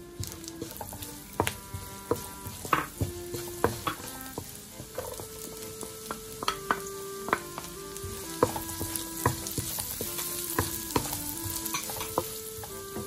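Chopped garlic and onion sizzling in hot bacon fat in a pan, with a wooden spatula knocking and scraping against the pan as they are stirred.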